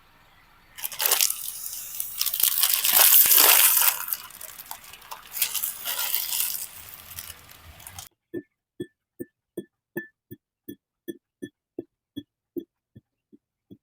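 Loud crunching and crinkling for about seven seconds, stopping abruptly. Then a steady series of short pitched taps, about two and a half a second.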